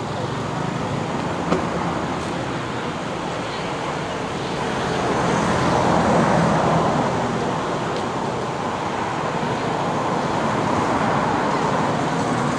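Steady outdoor background noise, a low rumble and hiss, swelling about halfway through and again near the end, with a single click about a second and a half in.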